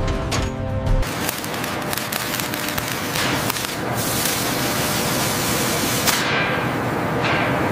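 Compressed-air paint spray gun hissing in a long, steady spray, easing off briefly about six seconds in.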